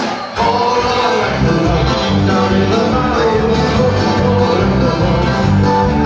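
Live band playing upbeat dance music, loud, with heavy bass; after a brief dip the full band comes back in strongly about half a second in.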